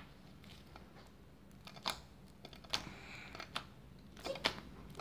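Homemade glitter slime being squeezed and pressed by hand, giving a few sharp clicks spaced about a second apart as air pockets pop.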